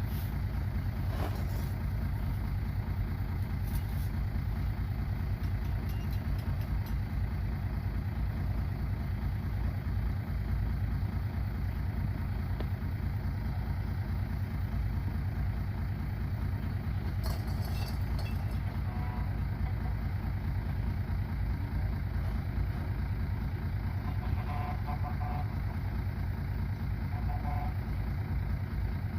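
Heavy diesel earthmoving machinery running steadily with a low rumble, with a few faint clicks along the way.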